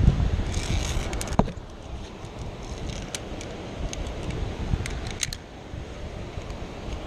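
Wind buffeting the body-worn microphone, with scattered light metallic clinks and jingles of via ferrata carabiners and lanyard gear, a small cluster about a second in and a few single clinks later.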